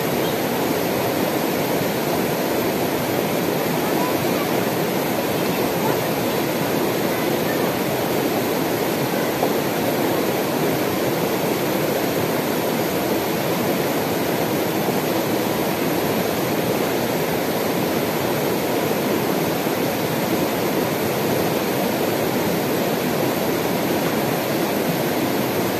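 Shallow mountain river rushing over rocks: a steady, even rush of water.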